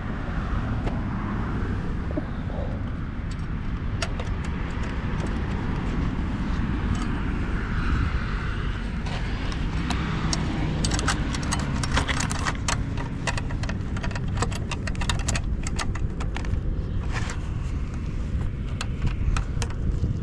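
Wind rumbling on the microphone, with a dense run of sharp metallic clicks and rattles starting about halfway through. The rattling comes from an electric bike whose chain has come off after its chain tensioner failed.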